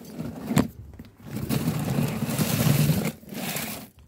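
A sharp thump about half a second in, then a couple of seconds of scraping and rustling as something is handled and moved close to the microphone.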